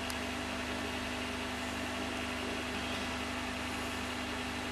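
Steady background hiss with a low, even hum: room tone, with no distinct event.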